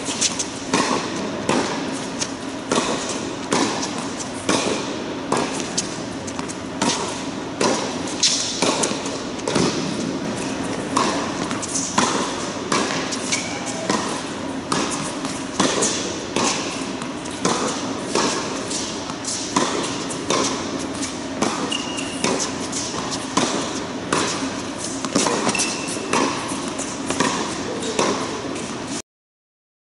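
Tennis ball being struck by a racket and bouncing on a hard indoor court, a quick, irregular run of sharp pops about once or twice a second, ringing in a large hall over a steady hum. The sound cuts off suddenly near the end.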